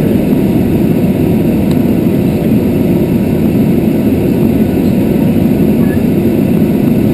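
Steady, loud drone of an aircraft in flight heard from inside the cockpit: engine and airflow noise, strongest in the low range, unchanging throughout.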